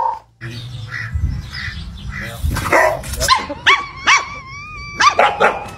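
A small dog barking in a string of short, high-pitched yips, mostly in the second half.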